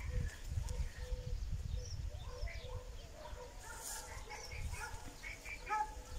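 Small songbirds chirping in short, scattered phrases, over an uneven low rumble on the microphone.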